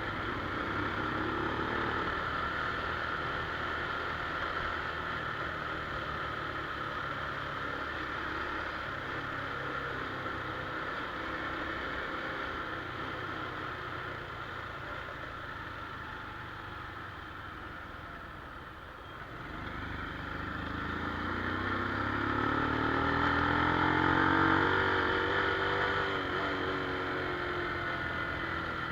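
Honda Wave 110i's single-cylinder four-stroke engine running. About two-thirds through the note drops away, then rises steadily in pitch and loudness as the engine picks up again.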